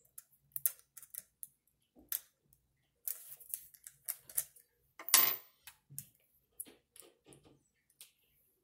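Scattered small clicks and taps of hard parts being handled as a shock absorber is refitted to an RC truck's front suspension, with one louder sharp click about five seconds in.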